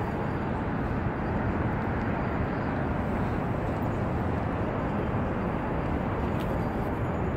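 Steady city street noise, mostly a low rumble of traffic running on without a break.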